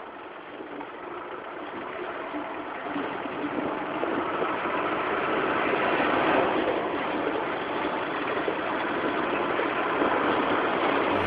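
Shared passenger van's engine and road noise heard from inside the cabin while driving, growing steadily louder.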